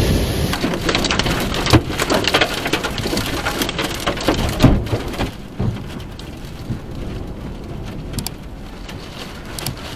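Heavy storm rain and wind, with a dense patter of sharp hits that is loudest for the first five seconds or so, then eases to a steadier, quieter hiss.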